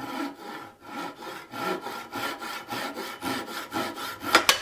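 Fine-toothed hand saw cutting off the end of a small wooden tenon in quick back-and-forth strokes, about three a second. One louder, sharper stroke comes near the end.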